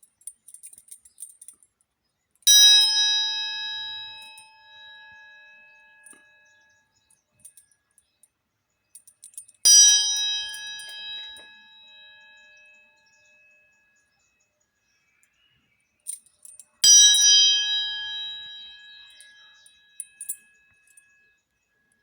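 A struck metal bell-like tone rings out three times, about seven seconds apart, each ring fading away over several seconds. Light metallic clinks sound between the strikes.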